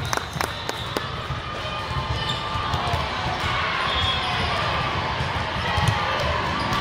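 Gymnasium sound during a volleyball match: volleyballs thudding repeatedly on the hardwood floor under a murmur of spectators' voices, with a short high squeak about four seconds in.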